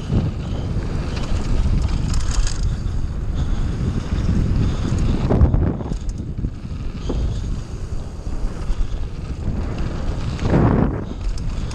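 Wind buffeting the microphone of a camera on a mountain bike running fast down a dirt and gravel trail, mixed with tyre rumble on the surface, with louder rushes about five and ten seconds in.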